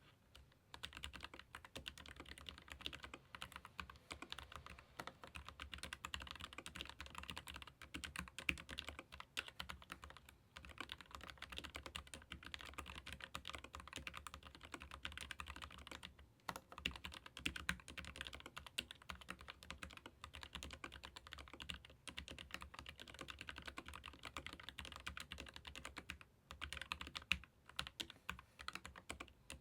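Typing on a Keychron K15 Pro Max ergonomic mechanical keyboard with Gateron low-profile red linear switches: a fast, continuous patter of keystrokes, with a few brief pauses.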